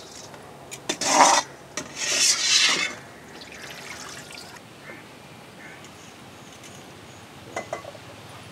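A perforated frying ladle scraped to tip crisp fried shreds onto fried fish: two rasping, rustling scrapes about a second apart, then a few small clicks near the end.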